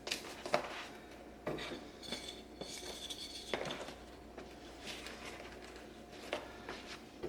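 Handling on a workbench: scattered knocks and clicks with a stretch of rubbing or scraping, over a faint steady hum.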